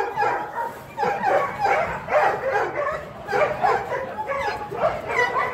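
Mixed-breed dog whining and yipping in a quick run of short, high, wavering calls.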